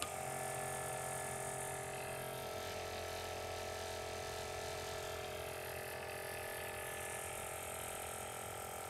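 VIAIR 310 Stealth Series 12-volt air suspension compressor, with its integrated intake muffler and spring-loaded vibration isolators, running steadily while pumping air, measuring about 67 decibels. It starts at once and cuts off at the end.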